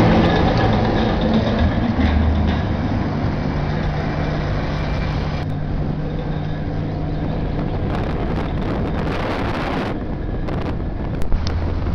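Heavy military vehicles, a wheeled armoured personnel carrier and army trucks, driving past with their engines running steadily. Wind buffets the microphone.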